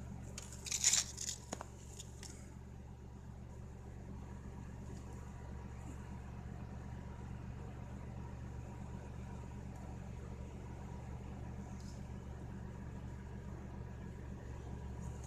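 Honda Civic engine running steadily at idle, a low even hum, with a brief rustle about a second in.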